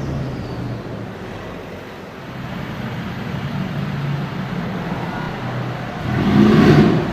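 Mercedes-AMG G-Class engine running steadily in street traffic, with a loud surge of engine noise about six seconds in that lasts under a second.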